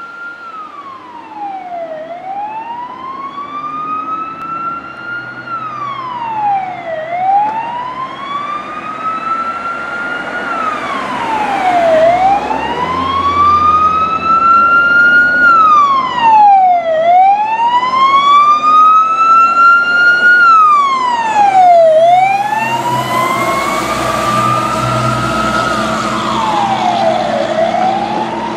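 Fire truck's electronic siren on a wail. Each cycle rises slowly for about three seconds, then drops quickly, repeating about every five seconds. It grows louder as the truck approaches and passes, and engine and road noise join in near the end.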